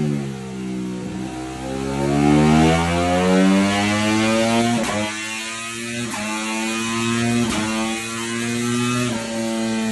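Ducati Panigale V4's V4 engine revving through Termignoni slip-on exhausts on a dyno. The revs drop, climb, then hold fairly high, with four sharp cracks spaced a second or so apart, and fall again near the end.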